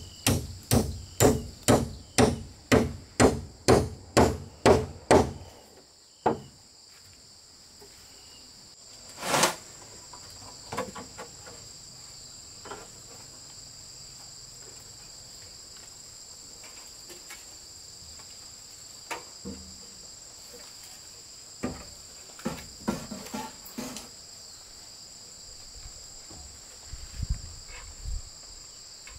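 About a dozen quick, evenly spaced hammer strikes, roughly two and a half a second, stopping about five seconds in. After that a steady chorus of crickets fills the rest, with one sharp knock about nine seconds in and scattered lighter knocks and taps.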